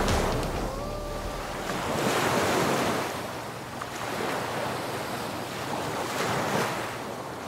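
Ocean surf washing onto a sandy beach: a steady rush of breaking waves that swells twice and slowly fades.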